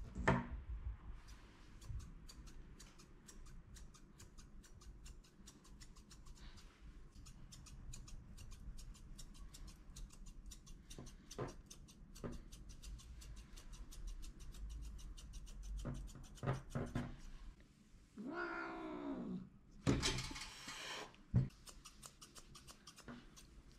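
Small grooming scissors snipping quickly again and again around a Persian cat's face. About 18 seconds in the cat gives a drawn-out cry that falls in pitch, then a louder, harsher cry: the complaint of a cat fed up with being groomed.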